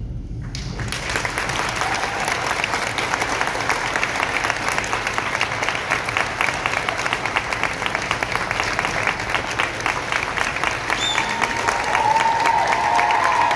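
Audience clapping, starting about half a second in and growing fuller, with a few voices calling out near the end.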